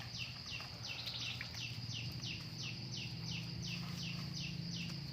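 An animal calling over and over in short chirps, each falling in pitch, about three a second, over a steady low hum.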